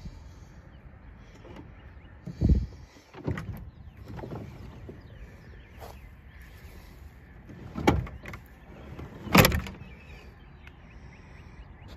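A few knocks and thumps from the metal entry door of a 1948 GMC Silverside bus being handled, the loudest and sharpest near the end as the door is shut.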